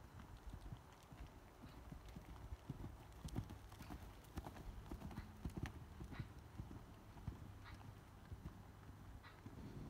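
Faint hoofbeats of a horse cantering on a soft sand arena surface.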